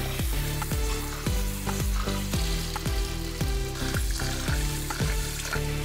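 Background music with a steady beat, over the swishing, hissing sound of rice being stirred and washed by hand in water.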